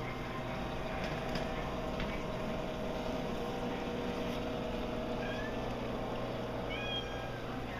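Steady hum and water sound of a reef aquarium's pumps, with a few short high-pitched calls about five seconds in and again near the end.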